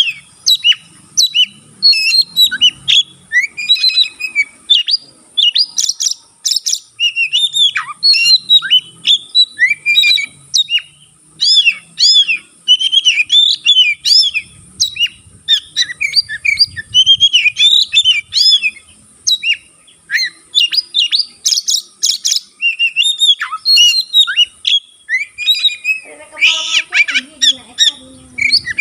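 Oriental magpie-robin (kacer) singing in full voice, a rapid, unbroken run of varied whistled and chattering phrases. Near the end comes a harsher, lower rasping call.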